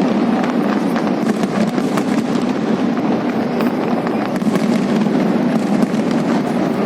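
Fireworks display going off in a dense, continuous barrage of many rapid pops and crackles.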